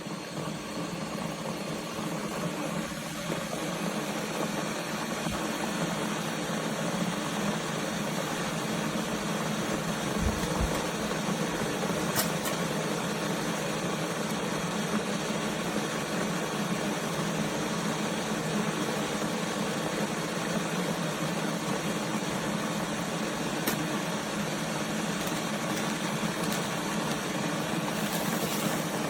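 Stainless steel electric kettle heating water: a steady rushing hum that grows a little louder over the first few seconds, then holds level.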